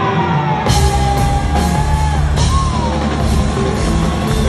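Rock band playing live, heard through the venue PA from the audience: heavy bass and drums with loud drum and cymbal hits starting under a second in, and a high, wailing vocal line held over the top.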